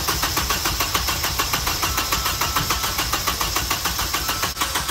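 A car engine being cranked on its starter motor without catching, its pulses coming about five or six times a second, with a brief break about four and a half seconds in. It is a newly fitted second-hand engine that will not start after two or three tries.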